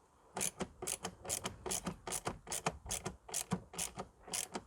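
Hand ratchet with a Torx bit clicking in a steady run of about five clicks a second, starting about half a second in, as the air filter box cover screws are tightened.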